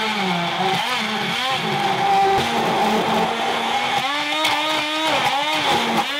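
Handheld immersion (stick) blender running in a tall plastic beaker, pureeing avocado with milk into juice. The motor whines steadily, its pitch dipping and rising back several times in the second half.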